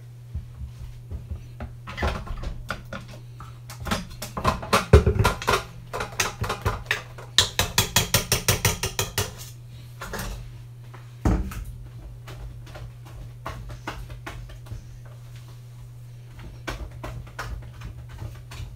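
Stainless-steel stand-mixer bowl and wire whisk being handled: scattered metallic clinks and knocks, a run of quick taps at about five a second around the middle, and one heavier knock a little past halfway.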